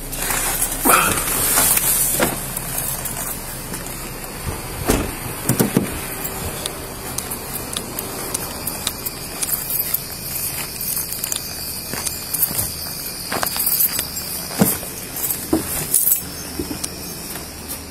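Rustling, knocking and footsteps from a body-worn camera and duty gear as someone gets out of a car and walks onto wooden porch boards, with keys and gear jangling. Crickets chirp steadily in the background.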